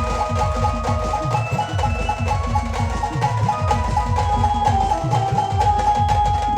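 Live village band playing an instrumental passage with no singing: a held melody line over fast, steady drum and percussion strokes.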